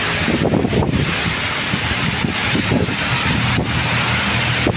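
Strong typhoon wind gusting against the phone's microphone, with rain hissing on a wet road and traffic passing.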